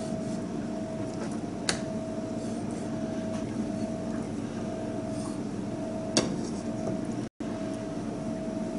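Steady machine hum with a held tone, with two sharp knocks of a kitchen knife against a plastic cutting board as mackerel fillets are cut in half. The sound drops out for an instant near the end.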